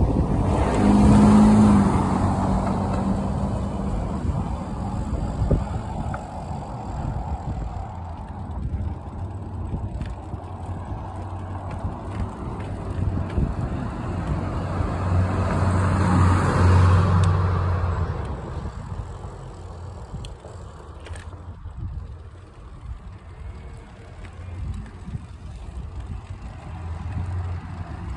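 Road traffic on a town street: cars going by, with two louder passes, one about a second in and one around sixteen seconds, over a low rumble of wind on the microphone.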